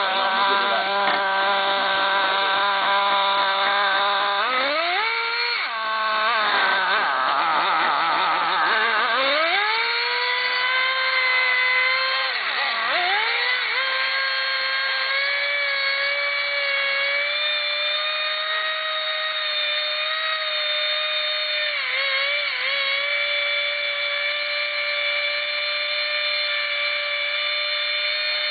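Radio-controlled car's motor running in place with a steady high whine, its pitch climbing between about four and ten seconds in and briefly dipping a couple of times.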